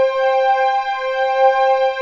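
A steady electronic, vocoder-like tone held on one pitch. It briefly dips and restarts about once a second.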